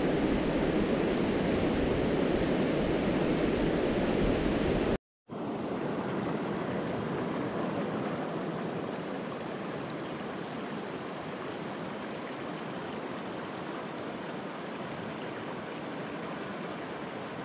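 Steady rushing noise of water and wind, with heavy low rumble at first; it breaks off briefly about five seconds in and resumes as a quieter, thinner rush.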